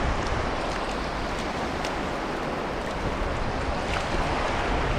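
Shallow surf washing steadily over sand at the water's edge, with a few faint small splashes from a hooked fish flapping in the shallows.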